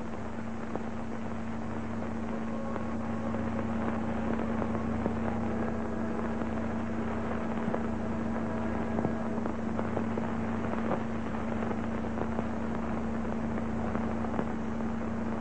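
Steady hiss and hum with scattered crackles from an old film soundtrack, with no clear sound event of its own.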